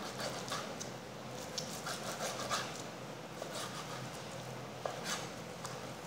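Chef's knife cutting raw entrecôte into small cubes on a plastic cutting board: irregular soft cuts, scrapes and light knocks of the blade on the board, over a faint steady hum.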